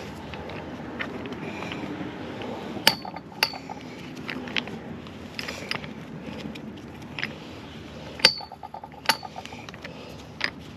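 A handful of sharp metallic clinks spread several seconds apart, a few of them ringing briefly: metal tools and gas-pipe fittings knocking together as they are handled.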